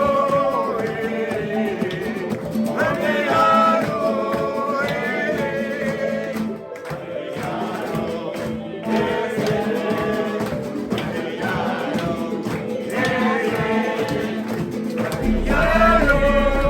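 Music with voices singing together. A steady low tone comes in near the end.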